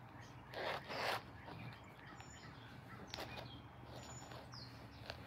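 Handling noise from a paper model engine being picked up and turned on a plastic cutting mat: two brief scraping rustles about half a second and a second in, then a few faint clicks.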